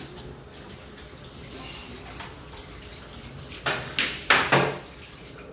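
Pool cue striking the cue ball on a small pool table, with balls clacking together: about four sharp knocks in under a second, a little past halfway through.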